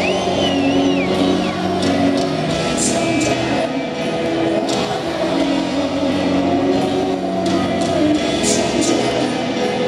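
Live rock band playing a slow ballad with piano and sung vocals, heard from the stadium audience. A high gliding tone sounds near the start.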